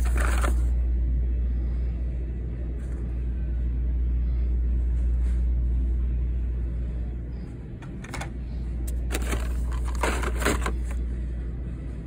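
Rustling and scraping of cardboard-and-plastic blister cards as die-cast cars are slid out of a cardboard case, in short spells at the start and again a couple of times near the end, over a steady low rumble.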